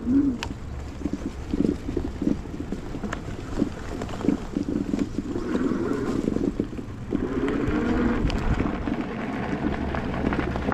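Riding noise from an e-bike: wind buffeting the microphone over a steady tyre and road rumble, with frequent short knocks and rattles from bumps. The noise swells for a few seconds past the middle.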